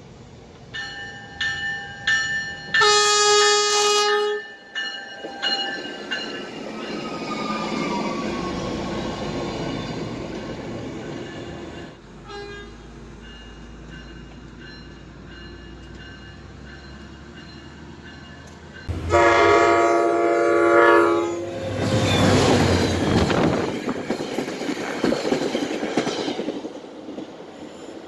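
Locomotive air horn sounding a few short blasts and then a longer one, its chord falling in pitch as the train goes by, followed by the noise of the passing train. About nineteen seconds in, another horn blast sounds, again followed by passing-train noise.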